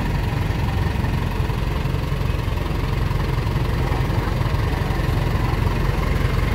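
Diesel engine of a parked tour coach idling with a steady low rumble.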